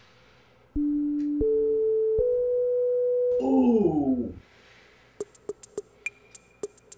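Electronic sound-effect sting: three steady pure tones stepping upward, then a falling pitch slide that dies away. About five seconds in, a sparse drum-machine beat of sharp clicks starts.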